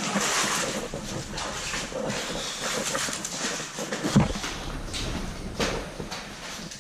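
Cavers' footsteps in rubber boots on a wet, stony cave floor, with scuffing and clothing rustle and a heavier knock a little after four seconds.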